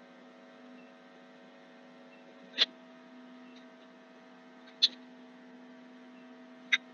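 Three sharp computer mouse clicks about two seconds apart over a steady electrical hum.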